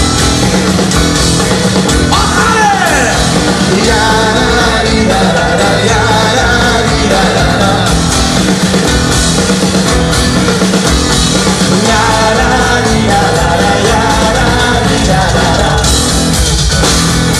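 Folk-metal band playing live at full volume: loud rock with electric guitars and drums, and vocals over it, heard from among the audience in a concert hall.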